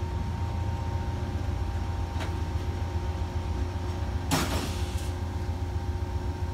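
Amtrak Silver Star passenger train with Amfleet II coaches standing at the platform, running: a steady low hum with a faint whine. A click comes about two seconds in, and a short hiss about four seconds in.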